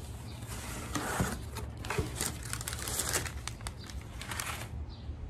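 Paper packaging crinkling and rustling as a box is unpacked by hand, in a run of quick irregular bursts that stop shortly before the end.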